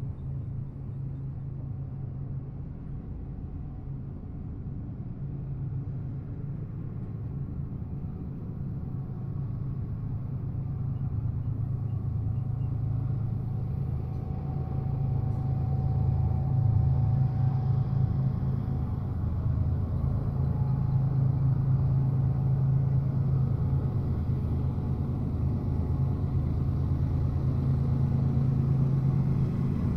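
Low, steady rumble of a freight train, slowly growing louder.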